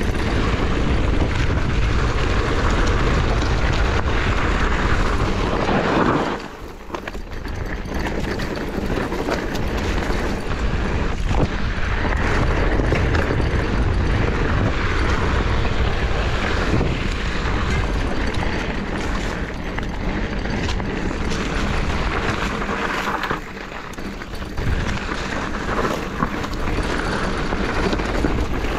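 Steady wind noise on the camera microphone, mixed with a mountain bike's tyres rolling over a dirt singletrack while riding along. The noise drops for a moment twice.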